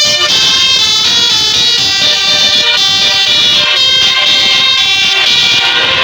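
Telolet basuri musical horn on a tour bus playing a tune: loud, continuous sustained tones that step from one pitch to another.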